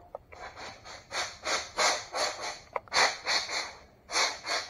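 Pneumatic air blow gun on a shop air hose giving short puffs of hissing air, about three a second, in several runs with brief gaps. The air supply is low on pressure and has to build back up.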